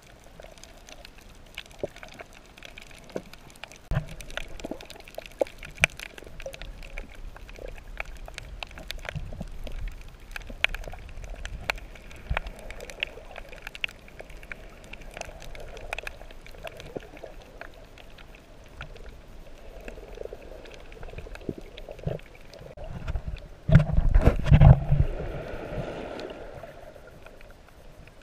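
Underwater sound on a shallow reef: scattered sharp clicks and crackles over a low rumble of moving water. About 24 seconds in, a louder surge of churning water builds and then fades.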